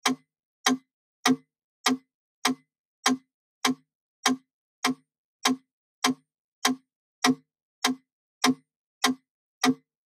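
Wooden mechanical metronome ticking at 100 beats per minute: sharp, evenly spaced clicks, each of about the same strength, with silence between them.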